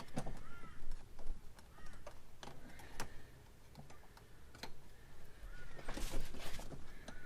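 Bent knife blade prying at the spring clip behind a car door's window winder handle: irregular metallic clicks and taps, with a longer scrape about six seconds in.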